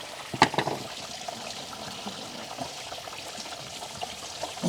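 Water running steadily out of an opened water supply line, a continuous pouring trickle. A short, sharp clatter about half a second in.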